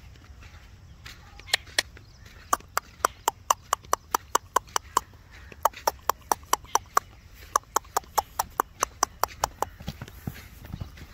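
A person's rapid tongue clicks, about five a second, in quick runs with short pauses: the clicking used to urge horses to move. Near the end come a few dull thuds of hooves in sand.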